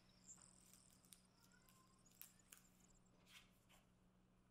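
Near silence, with a few faint light taps and clicks from card mats and postcards being handled on a wooden table.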